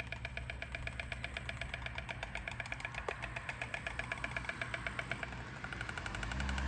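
White storks clattering their bills on the nest: a rapid, even run of wooden clacks that goes on without a break.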